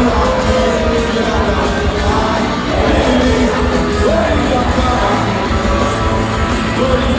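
A live rock band playing loud, amplified music, with a singing voice over the band.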